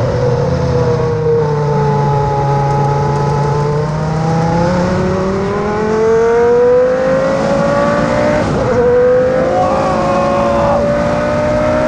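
Prost Formula 1 car's V10 engine under way. Its pitch sags a little, then climbs steadily as it accelerates, drops sharply about eight and a half seconds in at an upshift, and climbs again.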